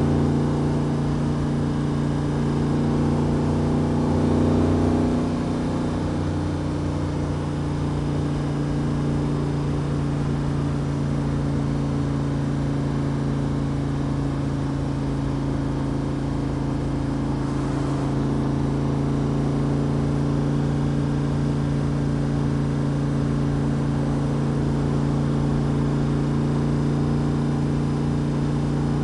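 The VMS 427R crate V8 of a Backdraft RT3 roadster, running at a steady cruise on the road. The engine note swells briefly about four to five seconds in, then holds steady.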